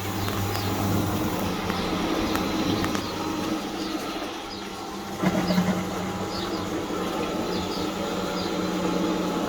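Fisher & Paykel MW511 washing machine running its spin cycle: a steady motor hum with a brief swell about five seconds in.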